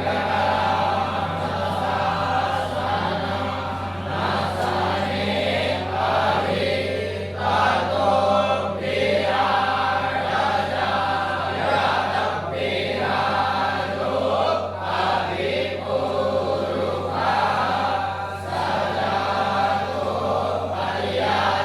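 A group of voices chanting mantras in unison, with short breaks between phrases.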